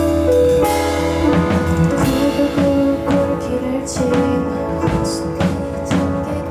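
Live band playing an instrumental break of a pop ballad: sustained keyboard chords with the drum kit coming in about a second in, keeping a steady beat with cymbal crashes.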